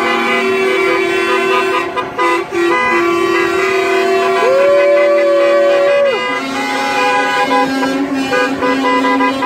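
Many truck and car horns sounding together in long held blasts, their overlapping tones making a steady chord. About four and a half seconds in, one truck air horn sweeps up in pitch, holds for about a second and a half and drops away.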